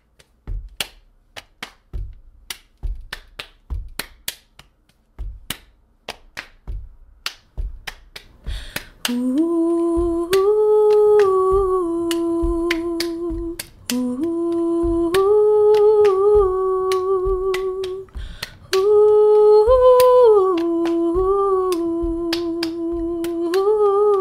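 Body percussion in a steady rhythm: snaps and claps with low thumps of hands patting the chest. About nine seconds in, a woman's voice joins, humming a wordless melody over the beat, with short breaks.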